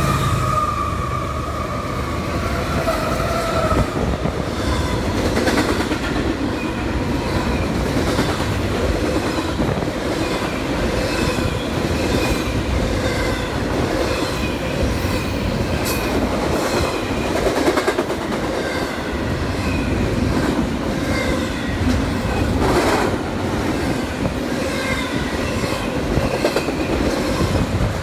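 Freight train passing close by. The locomotive's air horn carries on for about the first three seconds. Then come the steady rumble and rhythmic clickety-clack of double-stack container cars rolling over the rail joints, with some wheel squeal.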